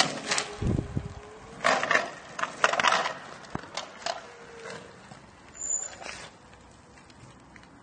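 Homemade electric sit-down scooter driving past, its small hard wheels rolling and crunching on gritty asphalt under a faint electric-motor whine that bends in pitch. Several loud bursts of rough noise in the first three seconds, loudest as it passes close, then fading as it drives away.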